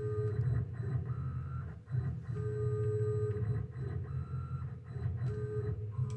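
CNC milling machine's axis motors driving the table through an automatic bore-probing cycle with a touch probe: a series of short moves, each a second or two long, with a steady whine that stops and restarts between moves.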